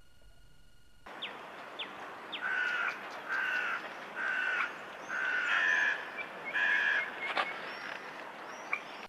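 A bird calling about six times in a row, each call about half a second long, after a few short high chirps. Open-air background hiss starts suddenly about a second in.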